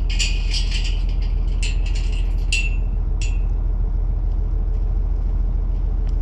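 Tractor engine running steadily, with clicking and rattling over it during the first few seconds.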